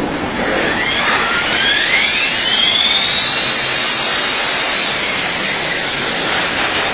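450-size electric RC helicopter spooling up: its motor whine climbs steadily over about two seconds, holds at speed over the rush of the spinning rotor, then fades near the end. A run-up to check whether the main blades track.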